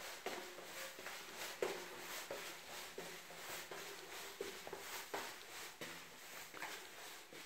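Faint footsteps climbing stone-tiled stairs, an uneven knock about every half second to second.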